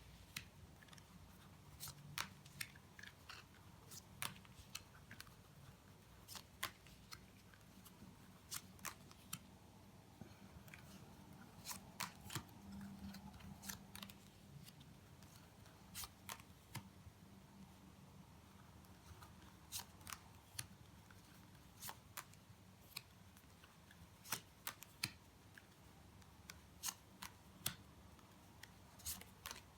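A tarot deck being gone through card by card: short, sharp snaps as the cards are slid and flipped off the deck, spaced irregularly, with short pauses between runs.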